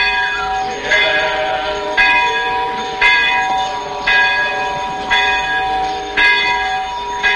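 A bell tolling about once a second, each stroke ringing on and fading into the next.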